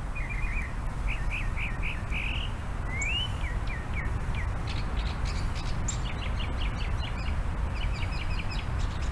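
Small songbirds chirping in short repeated notes and quick trills, over a steady low rumble.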